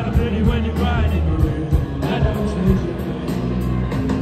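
Live rock band playing through a big tent's PA, heard from within the crowd: heavy bass and drums under a steady beat, with a singing voice.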